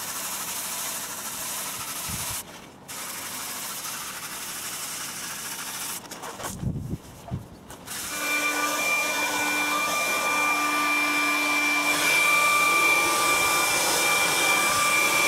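A handheld hair dryer running, blowing air onto a wet car door panel. A steady rushing hiss, briefly broken twice, becomes louder about halfway through and gains a steady high whine.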